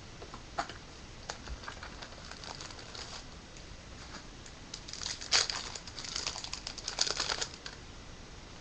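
Trading cards and their packaging being handled: scattered light clicks and taps, then a denser spell of crinkling and rustling from about five to seven and a half seconds in.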